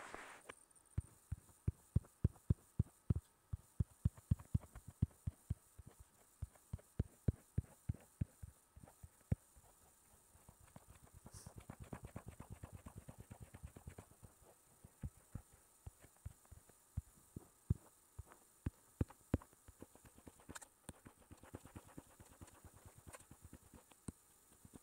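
Faint, irregular low taps on a tablet's touchscreen, about two or three a second, from dabbing brush strokes while shading a drawing, with a quicker run of lighter taps about twelve seconds in.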